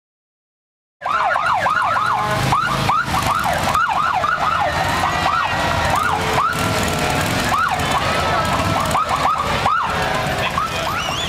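Police motorcycle sirens yelping in fast up-and-down sweeps, several overlapping, starting about a second in over crowd noise.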